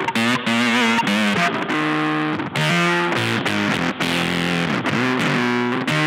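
Strat-style electric guitar played through a board of effects pedals: improvised single-note lead lines. The notes waver in pitch from bends and vibrato about half a second in, and longer notes are held in the middle.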